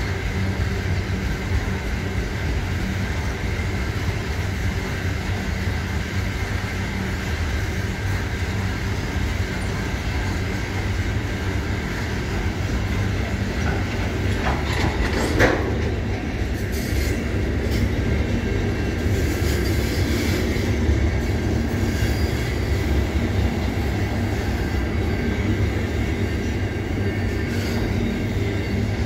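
Freight train's container wagons rolling past close by: a steady heavy rumble of steel wheels on rail, with a faint thin high whine from the wheels throughout. About halfway through comes a single sharp metallic knock, the loudest moment.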